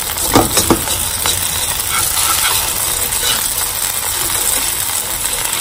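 Bánh xèo frying in oil in a hot pan, a steady sizzle, with a few sharp clicks and scrapes about half a second in.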